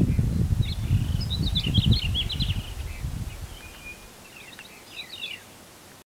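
A songbird sings two phrases of quick, falling notes, the first starting just under a second in and the second about four seconds in. Under the birdsong, a low wind rumble fades away by about halfway.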